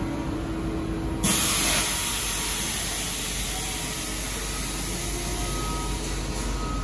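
A CNC vertical V-grooving machine running with a steady hum. About a second in, a loud hiss starts suddenly and keeps on, loudest at first.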